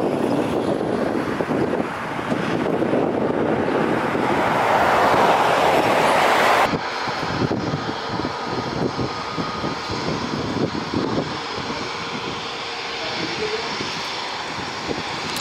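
Jet airliner's engines at takeoff power as it climbs away, growing louder, then cutting off abruptly about seven seconds in. Then an Airbus A320neo's CFM LEAP-1A engines running at low taxi thrust, a steadier, quieter hum with a faint high whine.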